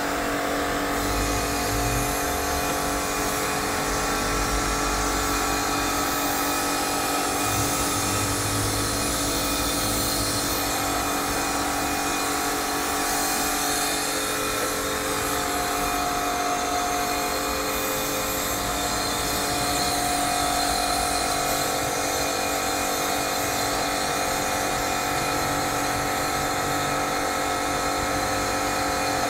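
Electric pressure washer running steadily, its motor and pump giving a constant whine over the hiss of the water jet spraying onto a wet rug.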